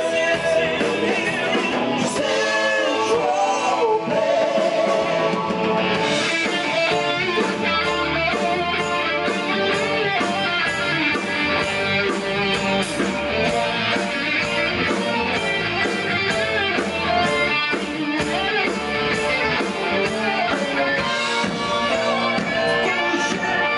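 Live rock band playing: electric guitars and drums keeping a steady beat, with sung vocals, as heard from the crowd.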